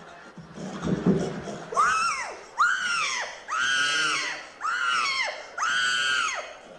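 A woman's voice at a microphone letting out five very high-pitched screams in a row, starting about two seconds in, each note rising and then falling in pitch, the middle one held longest.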